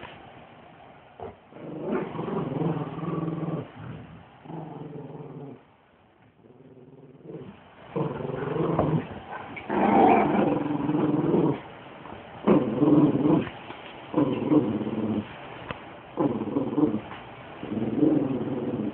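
Dog growling in play during a rope-toy tug-of-war: a run of growls about a second long each, with short breaks between them.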